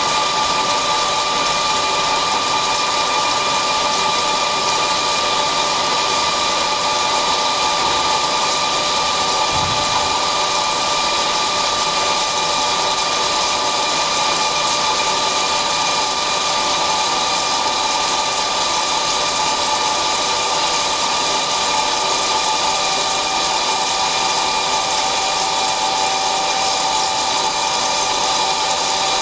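DHL-1120x2000 CNC flat-bed lathe running while machining a part: a steady mechanical hum with several high steady tones over an even hiss. A lower tone comes in near the end.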